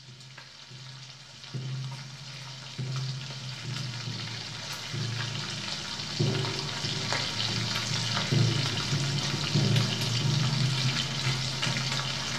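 A batter-coated brass saxophone deep-frying in hot oil, its sizzle and crackle picked up close by microphones and growing louder. Under it a low drone cuts in and swells in several steps.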